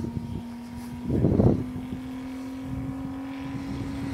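Saito FG-84 three-cylinder four-stroke radial engine of a scale model airplane in flight, running at a steady cruise with its pitch creeping slightly upward. A brief louder rush about a second in.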